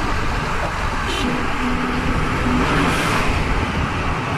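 Steady road and wind noise of a car cruising at speed, heard from inside the car: tyre rumble with a hiss of rushing air.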